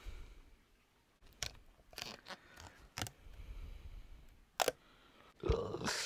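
A strip of Gorilla tape being cut and handled: a few separate sharp clicks and crackles, then a longer, louder rasp near the end.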